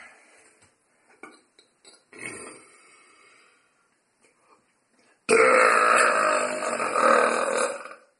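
A long, loud deliberate burp that starts suddenly about five seconds in and lasts nearly three seconds. It follows a shorter, much quieter sound about two seconds in.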